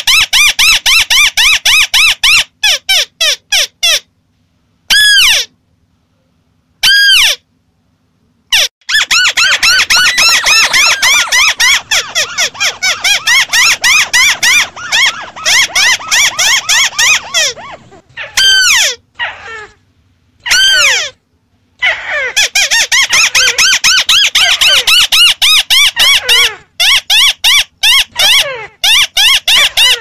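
White-browed crake calling: loud runs of quick, repeated chattering notes. There are short dead-silent gaps about four to nine seconds in, and a couple of single falling notes near the middle between long chattering bouts.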